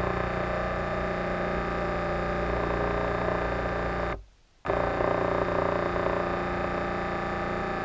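Background music: distorted electronic music with steady held tones, dropping out sharply for about half a second around four seconds in.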